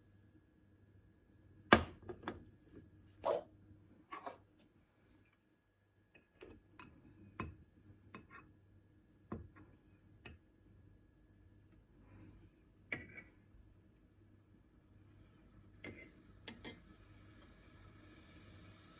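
Scattered knocks and clinks of kitchen utensils and dishes being handled, a dozen or so separate strikes with quiet between them. A faint steady hiss sets in near the end.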